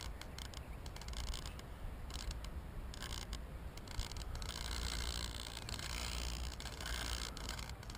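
Wind rumbling on a drone-mounted camera's microphone, with scraping and clicking from the drone being held and moved by hand. The motors are not running.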